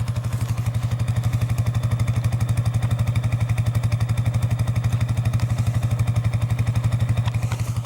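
A vehicle engine idling steadily, with an even pulsing beat.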